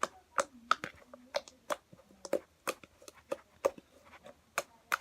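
Thick glue-and-clay slime being squeezed and kneaded by hand, making sharp clicking pops about three times a second.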